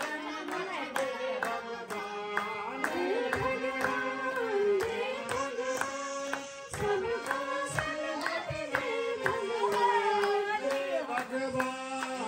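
Nepali devotional song: a voice singing into a microphone over harmonium accompaniment, with a steady percussive beat.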